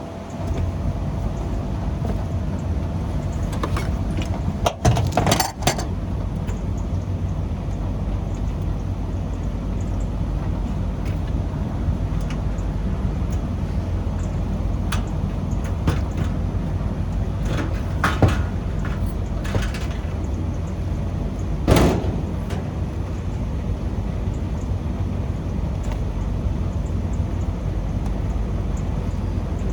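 Steady low rumble of a running Temperzone packaged air-conditioning unit, with a few short clatters and rustles of handling about 5 seconds in, again about 18 seconds in and about 22 seconds in.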